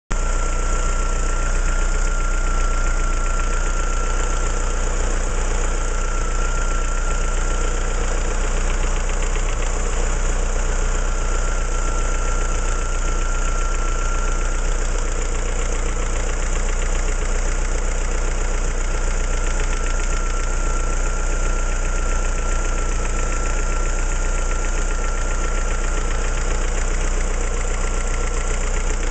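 Opel C16XE 1.6-litre 16-valve four-cylinder petrol engine idling steadily, with a thin steady high whine over its running.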